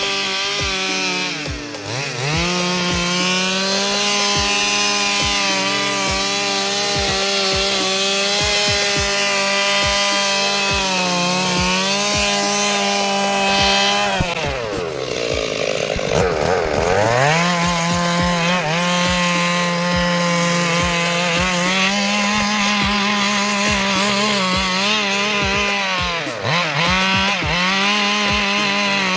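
Stihl two-stroke chainsaw running at high revs while cutting wood. Its pitch sags briefly about two seconds in. Around the middle it drops well down and then revs back up. It dips briefly once more near the end.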